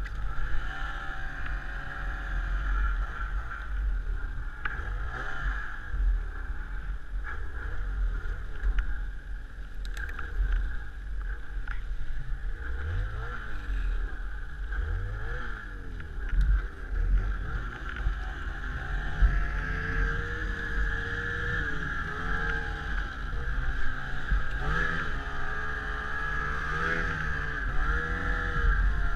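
Snowmobile engine running, its revs rising and falling again and again as it is ridden through deep snow.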